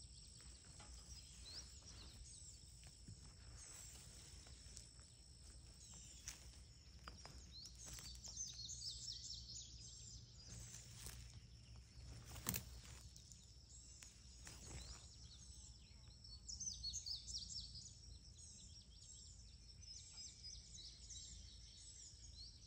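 Quiet outdoor ambience with small birds chirping in several bursts of quick high calls, over a faint steady high tone. A single sharp click about twelve seconds in is the loudest sound.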